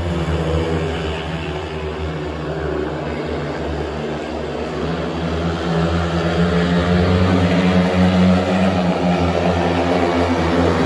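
Speedway motorcycles' 500 cc single-cylinder methanol engines running flat out in a race, blending into one steady drone that grows louder about six seconds in as the pack comes round toward the listener.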